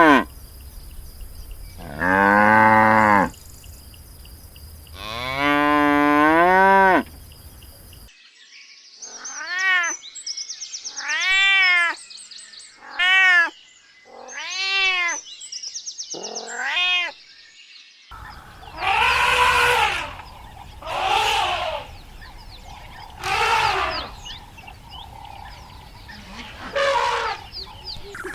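Livestock calling: first two long, low moos from cattle, then a run of six short, higher, arching calls and four more calls from other farm animals.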